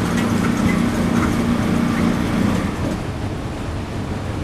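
Steady rumbling vehicle noise with a low hum that fades out about two and a half seconds in; the sound cuts off abruptly at the end.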